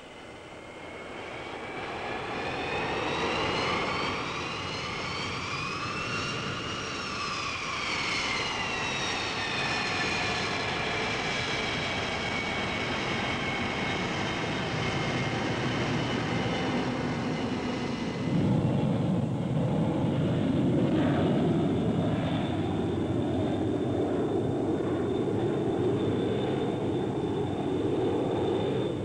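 Jet airliner engines, a three-engined Boeing 727: a high whine that rises and then falls in pitch. About 18 seconds in it cuts to a louder, deeper steady jet roar with a thin high tone over it.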